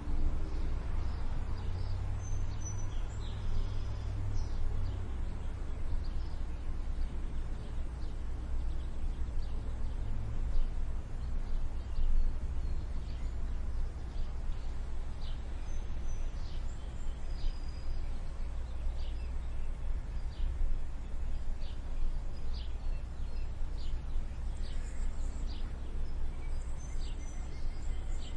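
Steady low background rumble with frequent short, high chirps from small birds.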